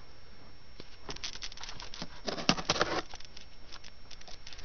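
Cardboard box being handled and opened: a run of rustles, scrapes and small taps, busiest from about two to three seconds in.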